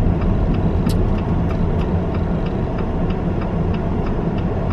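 Car turn-signal indicator ticking evenly, a few times a second, over the steady low rumble of the engine and road heard inside the Jeep's cabin.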